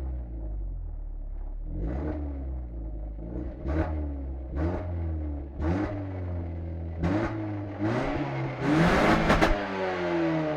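Renault Laguna 2.0 16V 140 hp four-cylinder petrol engine on its stock exhaust, blipped in about six quick revs that each rise and drop back. Near the end comes one longer, louder rev, and then the engine settles back toward idle.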